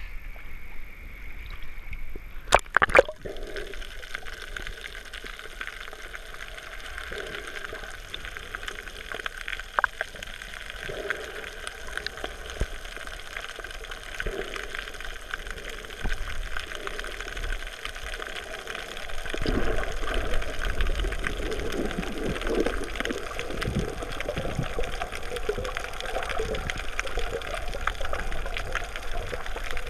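Water heard through an action camera's waterproof housing while snorkeling: a few sharp knocks and a splash as the camera goes under about three seconds in, then steady muffled underwater gurgling and sloshing, louder in the last third.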